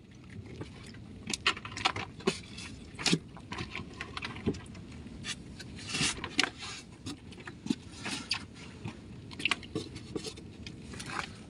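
Freshly caught fish being handled by hand in a styrofoam cooler box and dropped into a plastic bucket: irregular wet slaps, clicks and rustles of fish against fish and against the box and bucket.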